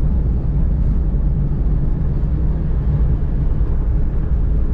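Steady rumble of engine and tyre noise inside a small van's cabin while it cruises along a highway.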